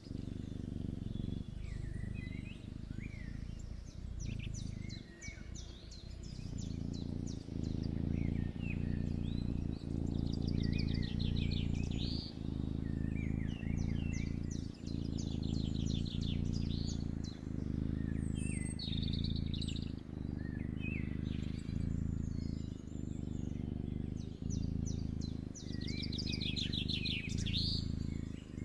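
Kitten purring, a low buzz that swells in about six seconds in and breaks briefly with each breath, about once a second. Birds chirp and trill in the background.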